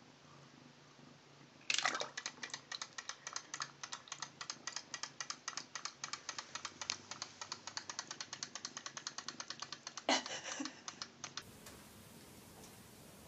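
A rapid, even run of light clicks or taps, about five or six a second, lasting about eight seconds, ending in a short, denser scrabbling burst.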